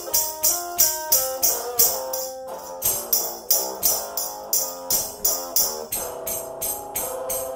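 Live band music: a tambourine shaken on a steady beat, about three hits a second, over an instrument playing changing notes.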